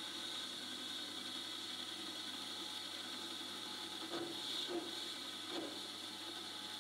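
A metal lathe turns a steel workpiece while a boring bar cuts inside the bore, a steady hiss of cutting and spindle noise. Three short scrapes come a little past the middle.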